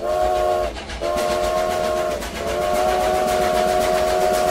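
Steam locomotive whistle blowing three blasts, each a chord of several tones: a short one, a longer one, then a long one held on, each sagging in pitch as it ends. Under the whistle runs the steady noise of the moving train.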